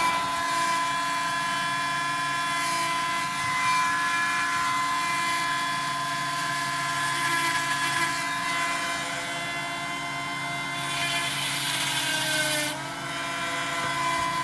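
Parkside rotary tool spinning a small diamond core drill at steady speed, a continuous high whine. About eleven seconds in a harsher grinding hiss joins it for a couple of seconds as the bit bites into the agate, and the motor's pitch sags slightly as it ends.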